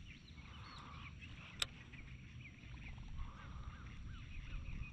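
Faint, repeated short calls from animals around the pond, with a low outdoor rumble beneath. A single sharp click about a second and a half in.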